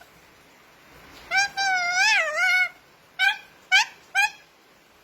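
A talking cockatoo calls out: one long warbling call, rising and falling in pitch, then three short calls in quick succession. The calls sound like a cat's meow.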